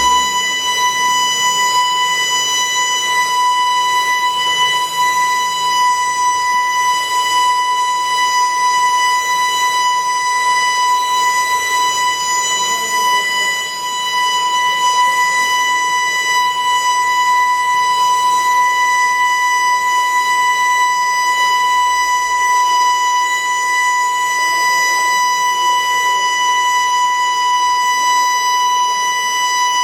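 Building evacuation alarm sounding one continuous, steady high tone that neither rises nor falls nor pulses.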